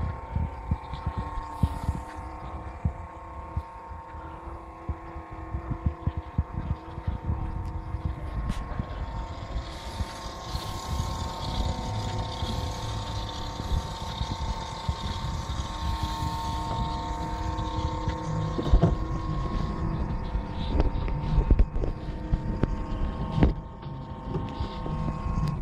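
Rumbling and thudding handling noise on a phone microphone as it is carried around, over a steady hum.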